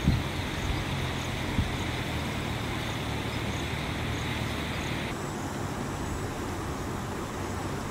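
Steady outdoor background rumble with a low hum and an even hiss; the hiss cuts off suddenly about five seconds in, and there are a couple of faint clicks near the start.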